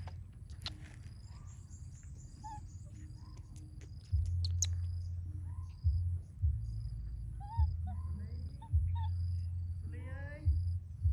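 Birds chirping in a fast, even, repeating pattern over a low rumble on the microphone that cuts in and out, with a few sharp clicks in the first seconds and a short wavering call about ten seconds in.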